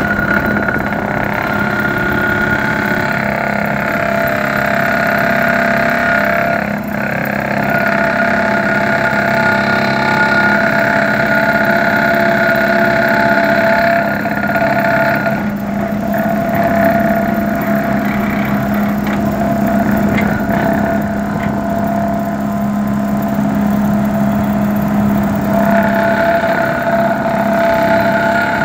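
John Deere excavator's diesel engine running steadily, with a steady whine over the low hum.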